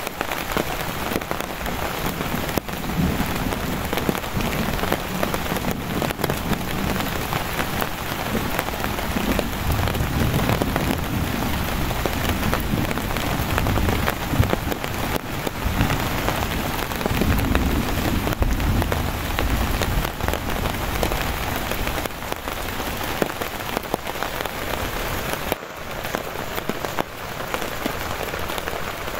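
Heavy rain falling steadily on a tarp and tent fabric, with low rolls of thunder swelling up several times.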